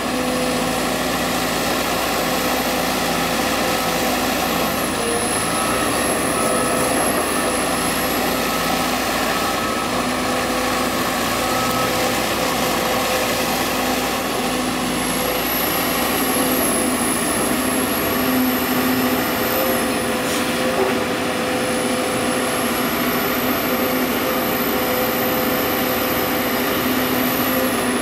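Sumitomo SH210 excavator's diesel engine running steadily at working speed, with a high whine that rises and falls a little in pitch.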